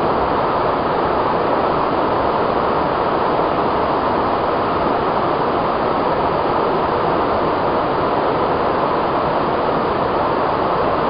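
Steady, even rushing noise with no separate sounds in it.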